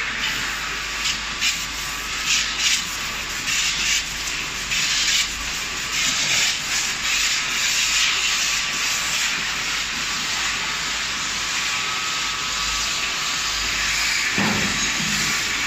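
Risense tunnel car wash machine running, a steady hiss of spraying water with uneven surges in the first few seconds. A low swell comes about fourteen seconds in.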